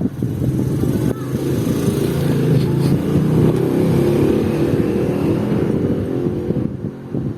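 A motor vehicle engine running, its pitch shifting up and down; it grows louder towards the middle and fades out shortly before the end.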